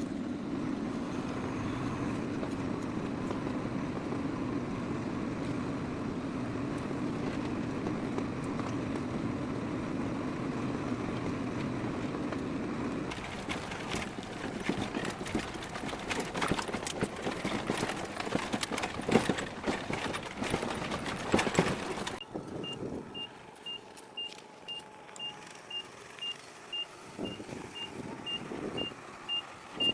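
Heavy farm machinery at work: an engine running steadily, then about 13 seconds in a stretch of clattering and rattling knocks. About 22 seconds in the machinery noise falls away and a reversing alarm beeps steadily, about twice a second.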